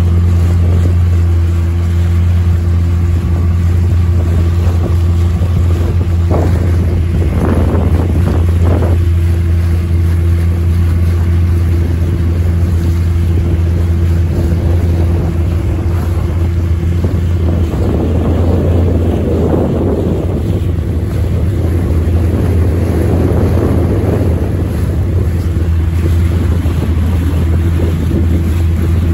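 Motorboat engine running at a steady low hum, with water splashing and rushing past the hull now and then.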